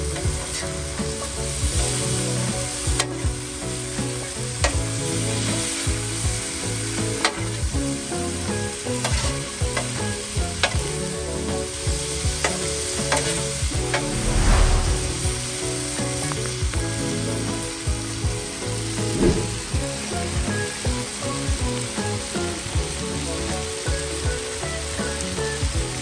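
Steak, shrimp and vegetables sizzling in teriyaki sauce on a hot Blackstone flat-top griddle, with the clack and scrape of a metal spatula on the steel at irregular intervals. A louder thump comes about halfway through.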